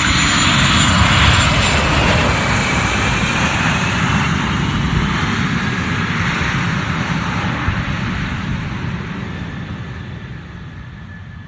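Business jet engines passing by: a loud jet rumble with a faint whine that falls in pitch, loudest about a second in, then slowly fading away.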